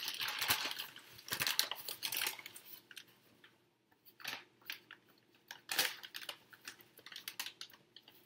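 Paper flour bag crinkling and rustling as it is tipped upside down and shaken to empty the last of the flour. The crinkling is dense for the first two seconds or so, then comes as a few separate crackles.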